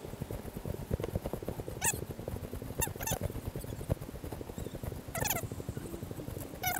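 Footsteps crunching along a dry, stalk-strewn dirt path with rustling of dry corn stalks, an irregular run of crackles and knocks. A few short, high squeaks falling in pitch cut through it about two, three and five seconds in and again near the end.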